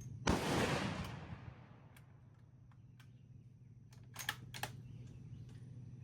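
A single shot from a .22 Creedmoor bolt-action rifle, the Fierce Firearms Carbon Rogue, about a third of a second in, its report dying away over about a second. About four seconds in come two short, sharp clicks.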